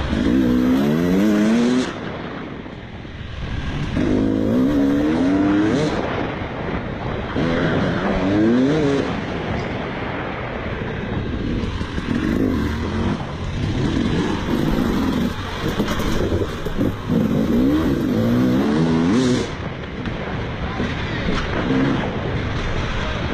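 Motocross bike engine revving in repeated rising bursts, easing off between them as the rider accelerates and slows again.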